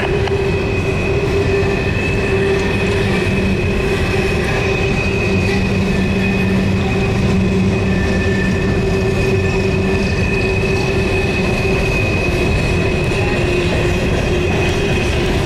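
Steel coal hopper cars rolling past on the sharp Horseshoe Curve, a steady rumble of wheels on rail with continuous high-pitched wheel squeal, the sign of wheel flanges grinding against the curved rail.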